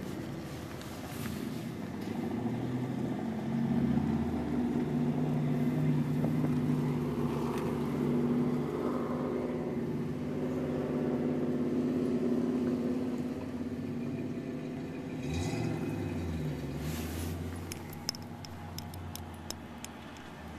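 A motor vehicle's engine running steadily with a low hum, swelling louder for several seconds in the middle and fading toward the end. A few light clicks come near the end.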